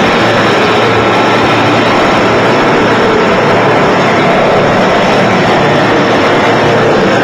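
Large machine tool running with a loud, steady mechanical drone and a few faint steady tones, without a break.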